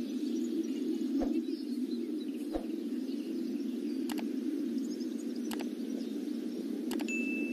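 Muffled, steady stadium crowd ambience, with a soft knock about every second and a half. A short high ding sounds near the end.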